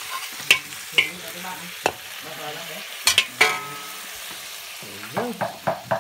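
Eel frying in a wok with lemongrass and chili, sizzling steadily while it is stir-fried, with a ladle clanking sharply against the wok several times, three in quick succession about three seconds in.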